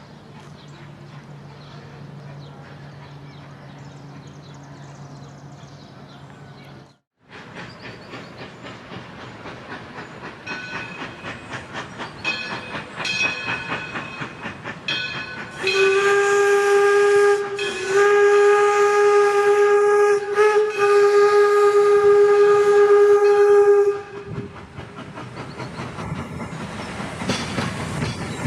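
Baldwin 4-4-0 steam locomotive working, its exhaust beats quickening, then its steam whistle sounding a long, loud blast broken briefly two or three times. Steam hiss and running clatter follow near the end. A low steady hum comes first, cut off by a short drop-out about seven seconds in.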